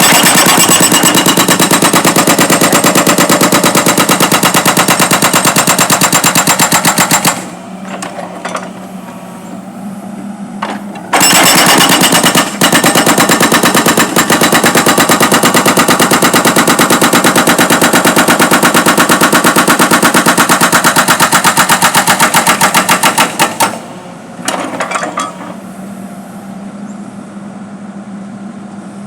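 Backhoe-mounted hydraulic road breaker hammering in rapid, evenly spaced blows, in two long runs with a pause of a few seconds between them while the backhoe's engine runs on. It stops again a few seconds before the end, with a couple of short bursts.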